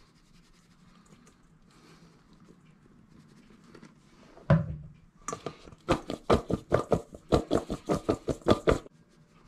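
Flour-dusted pickle spears being shaken and tossed in a stainless steel bowl: after a few faint seconds while the flour is poured, a single knock, then a quick run of sharp rattling knocks, about four a second, for about three seconds.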